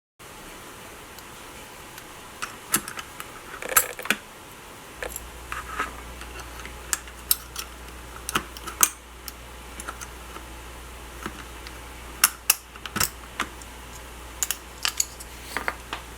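Typing on a Royal Kludge H81 mechanical keyboard with SkyCyan switches: irregular keystrokes, a few a second, some much louder than others.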